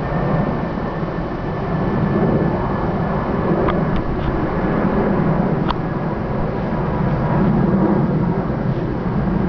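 Steady low rumbling noise, with a few faint clicks around the middle.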